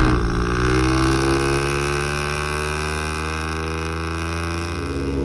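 A steady mechanical drone like an engine running, made of several tones, a few of them slowly rising in pitch; it cuts off abruptly at the end.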